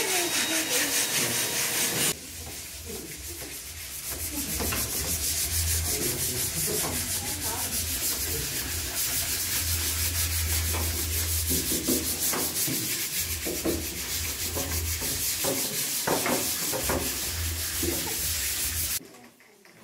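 Sandpaper rubbed by hand over a wooden cutting board in quick back-and-forth strokes, a steady scratchy rubbing that stops suddenly near the end.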